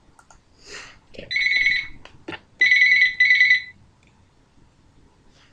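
Telephone ringing in a double-ring pattern, a high electronic trill: the call ringing through before it is answered. A few faint clicks and a soft rustle come just before the first ring.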